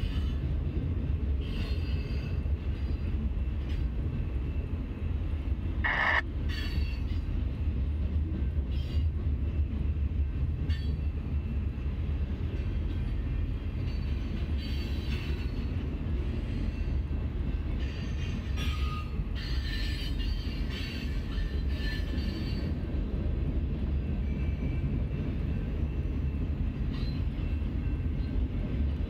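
Freight train cars rolling past at a grade crossing: a steady low rumble with scattered wheel clanks and rattles, and a brief high squeal about six seconds in.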